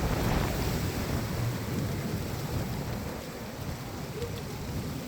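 Heavy thunderstorm rain falling steadily under a low rolling rumble of thunder, loudest in the first second or two and easing off after about three seconds.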